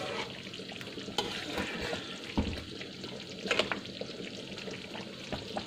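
Rendang, beef in coconut milk simmered for over an hour, sizzling and bubbling in a wok while a wooden spatula stirs it, with a few short knocks and scrapes of the spatula against the pan.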